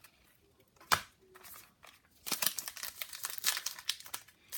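One sharp tap about a second in, then from about two seconds in the dense crinkling of a trading-card pack's foil wrapper being torn open and handled.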